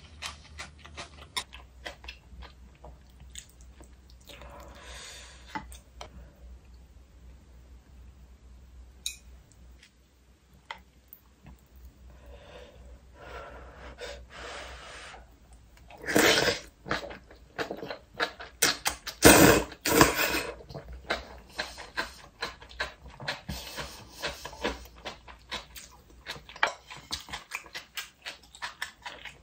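Close-up eating sounds of gomtang with noodles: wet chewing clicks and noodle slurps, the loudest slurps coming about halfway through.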